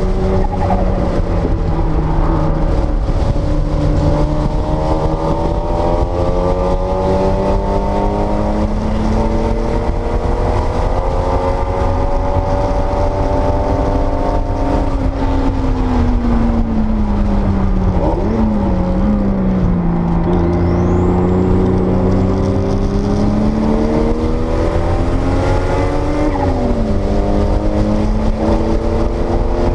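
1979 Porsche 930 Turbo's air-cooled flat-six pulling hard at track speed, its note climbing steadily, falling away about halfway through and climbing again before a quick drop near the end, over a constant low road and wind rumble.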